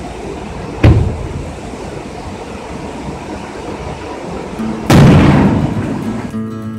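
Two sudden loud booms about four seconds apart, each dying away over a second or so, over background music and a steady rushing noise that stops near the end.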